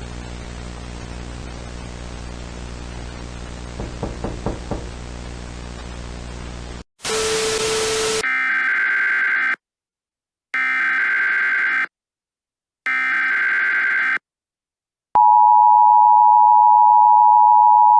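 Static hiss over a low hum, cut off about seven seconds in by a brief harsh burst. Then three Emergency Alert System SAME header bursts of digital data, each about a second long with a second's pause between. About fifteen seconds in, the steady two-tone EAS attention signal begins.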